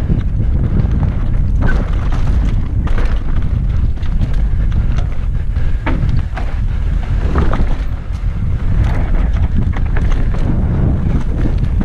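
Heavy wind buffeting on a helmet-mounted camera's microphone during a fast mountain-bike descent, with the bike rattling and knocking as it runs over rough dirt and rocks.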